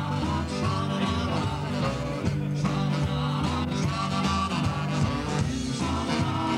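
Rock-and-roll band playing live through PA speakers: electric guitar and keyboard over a steady bass line.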